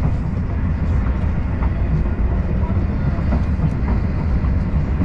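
Steady running noise of a Talgo high-speed passenger train on the rails, heard from inside the carriage, mostly low and even with a few faint ticks.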